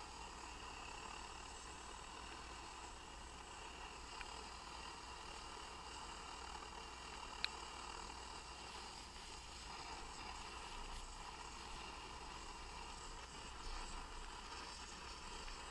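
Optimus Hunter camping stove burner running steadily under a covered pot, a constant hiss, with a sharp tick about seven seconds in.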